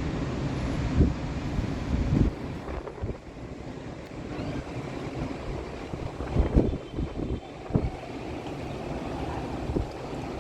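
Steady rushing noise of a summer downpour and storm wind, with gusts thumping on the microphone a few times, most strongly past the middle.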